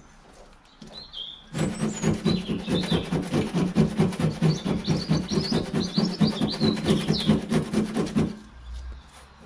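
Coarse 80-grit sandpaper rubbed by hand in fast, even back-and-forth strokes over a corroded aluminium boot lid, scraping the corrosion out from under the paint. The strokes start about a second and a half in and stop near the end. Birds chirp faintly over them.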